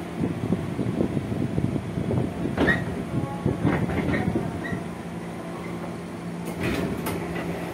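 Inside a JR 205 series electric commuter car standing at a station with its doors open: a steady hum from the onboard equipment, with scattered knocks and clatter over the first few seconds.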